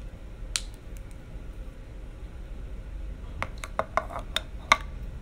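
Makeup cases and tools being handled and set down: one sharp click, then a quick run of about seven plastic clicks and clacks, the last the loudest.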